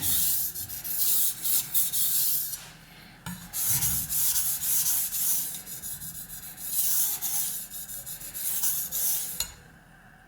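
Knife blade stroked back and forth across the wet 3000-grit side of a Suehiro combination waterstone, a rasping scrape through a thick slurry of mud on a soft stone. The strokes come in three runs with short pauses and stop about a second before the end.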